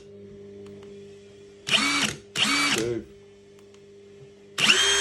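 Ryobi 18-volt brushless high-torque impact wrench run in short bursts on the tightening setting, each about half a second of motor whine and hammering that stops abruptly. There are two quick bursts about two seconds in, and another begins near the end.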